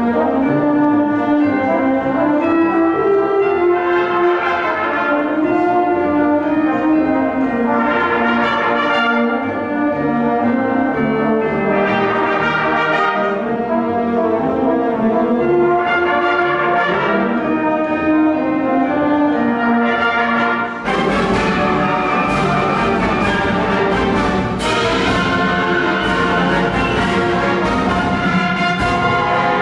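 A student wind ensemble (concert band) playing a piece of music, with brass to the fore in sustained, overlapping phrases. About two-thirds of the way through the sound turns fuller and brighter.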